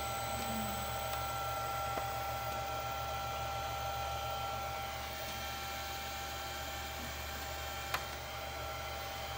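Steady electrical hum and fan-like running noise from the PowerFlex 70 drive's test setup, with a few thin high whining tones. A single sharp click about eight seconds in.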